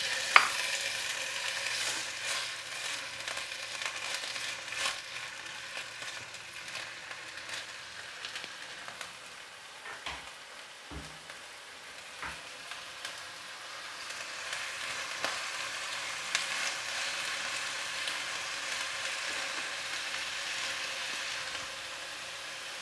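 Chopped onion sizzling in hot cooking oil in a nonstick wok, stirred with a slotted spatula that scrapes and taps the pan now and then. A sharp clack comes just after the start, and the sizzle swells a little in the second half.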